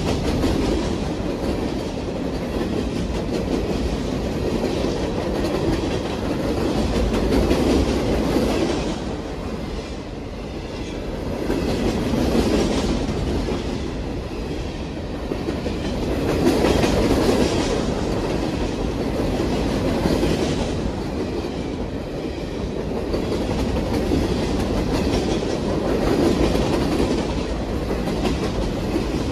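Freight train of CSX hopper cars rolling past close by. It makes a steady rumble with the wheels clacking over the rail joints, swelling and easing every few seconds.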